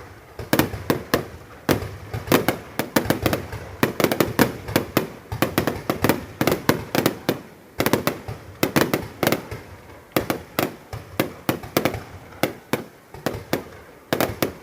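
Aerial fireworks going off, many sharp bangs in quick, irregular succession with brief lulls between clusters.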